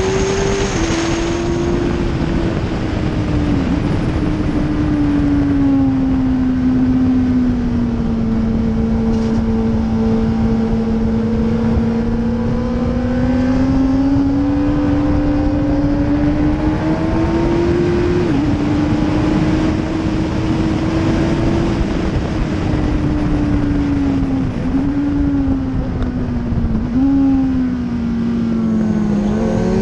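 Suzuki GSX-R1000 K4 inline-four engine pulling hard on track, its pitch falling and rising with throttle through the corners, with a few sudden drops at gear changes. Heavy wind noise runs under it.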